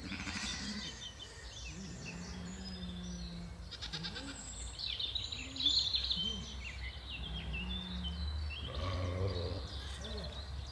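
Outdoor ambience of small birds chirping and twittering, with a rapid trill about four seconds in, over a steady low rumble. A few low, drawn-out calls come in the background, around two to three seconds in and again near eight seconds.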